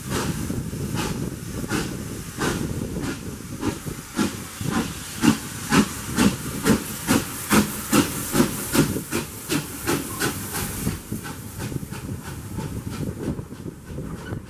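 Taff Vale Railway 0-6-2 tank engine No. 85 working a train, its exhaust beating at about two chuffs a second and slightly quickening, over hissing steam. The beats fade away near the end.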